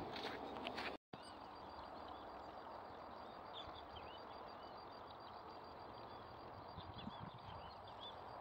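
Small birds chirping in short, arched calls every second or so over a faint steady outdoor hiss. The sound drops out for an instant about a second in.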